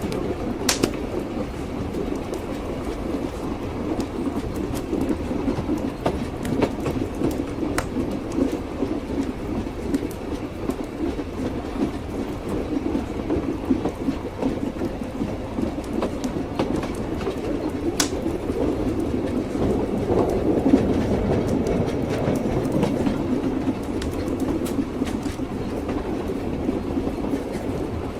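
Train wheels clattering over the rails, a steady rumble of a moving train with a few sharp clicks scattered through it.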